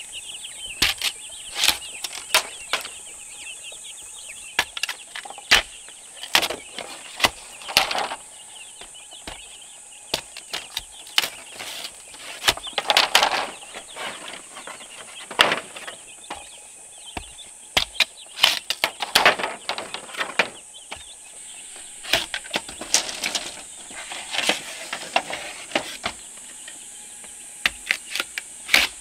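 Chickens clucking, with many sharp, irregular knocks and clicks over a steady high hiss.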